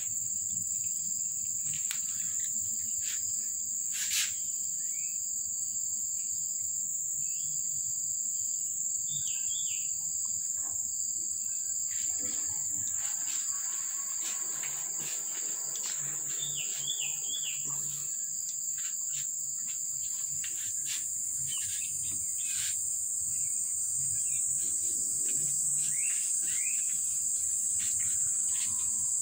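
Insects droning steadily with a high-pitched, unbroken whine, a little louder in the second half. Scattered faint clicks and a few short high chirps sound over it.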